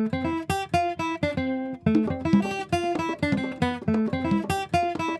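Background music: an acoustic guitar picked in a quick, continuous run of plucked notes.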